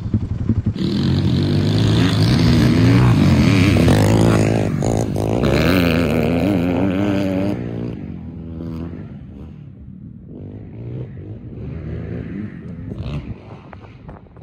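Single-cylinder four-stroke pit bike engine putting along, then revving hard about a second in, its pitch rising and falling with the throttle. It fades away from about halfway through.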